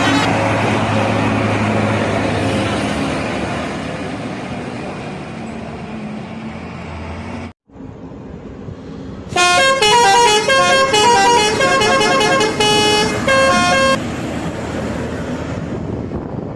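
Bus engine and road noise as a bus goes by. After a brief cut, a telolet horn plays a quick stepping melody of several tones at once for about four and a half seconds, the loudest sound here, with the engine still running under it.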